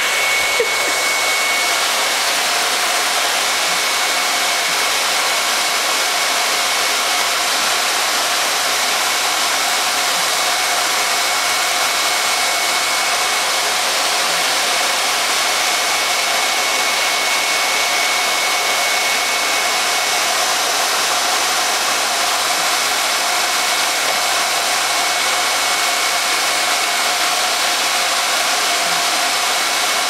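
Miele canister vacuum cleaner running steadily: a loud, even rush of air with a thin high whine over it.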